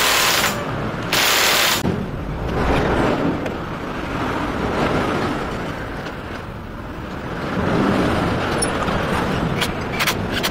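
Two short bursts of hiss about a second apart, then a low steady rumble, with a few sharp light clicks near the end as hands work on a small generator's engine parts.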